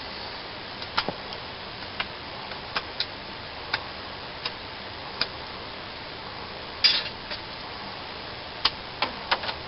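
A knife blade shaving curls off a stick of wood, making feather sticks. Each stroke gives a short, crisp click, at irregular intervals a second or so apart, with a few quicker strokes near the end.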